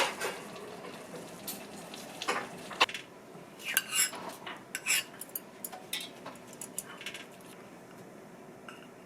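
Metal cutlery and utensils clinking against dishes and pans, a scattered run of sharp clinks over the first seven seconds or so, then only a faint steady background.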